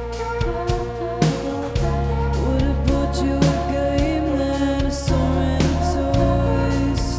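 A live band playing a song: drum and cymbal hits at a regular beat over sustained chords and bass.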